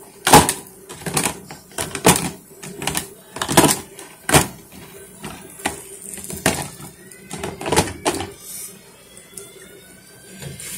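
A series of sharp, irregular knocks and clatters, roughly one a second, that stop about eight seconds in, over a faint steady hum.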